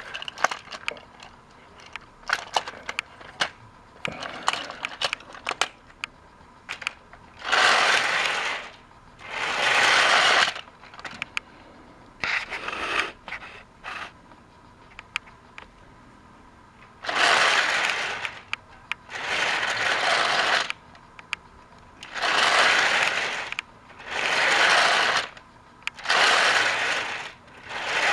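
Plastic toy train wagons clicking and clattering as they are pushed and coupled by hand. From about a third of the way in come eight hissing bursts, each a second or so long.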